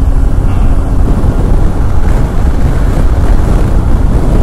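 Wind blast buffeting the microphone of a motorcycle cruising at highway speed, with a faint steady engine hum underneath.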